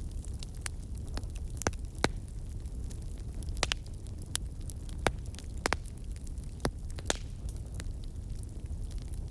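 Wood fire crackling: irregular sharp pops and snaps of burning wood over a steady low rumble.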